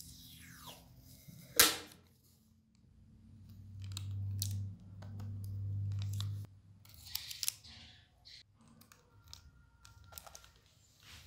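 Yellow adhesive tape pulled off its roll and pressed down over a metal cover plate, with crackly tearing and peeling sounds and a sharp snap about a second and a half in. A low hum runs for a couple of seconds in the middle.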